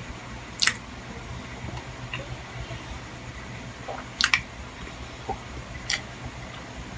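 A person chewing and eating up close, soft wet mouth sounds with a few sharp smacking clicks, one double, over a steady low hum.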